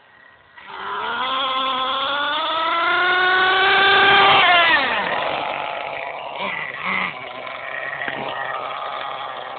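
HPI Bullet 3.0 nitro monster truck's .18 nitro engine running at throttle, its pitch climbing steadily for about four seconds to the loudest point. The pitch then drops steeply about halfway through, and the engine runs on lower and unevenly.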